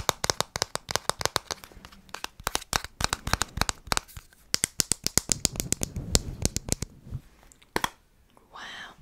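Fingernails tapping quickly on a plastic sunscreen stick case held close to the microphone, several sharp taps a second. There is a short lull about two seconds in, and the tapping stops about seven seconds in after a couple of last taps.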